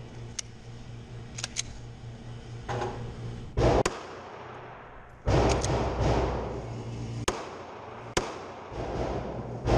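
Handgun shots in an indoor shooting range: scattered sharp cracks, two of them much louder with a long echoing tail, about a third and halfway through.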